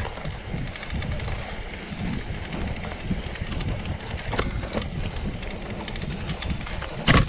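Mountain bike rolling over a rough trail: a steady low rumble of tyres and wind buffeting the microphone, with a few light rattles and one loud sharp knock near the end.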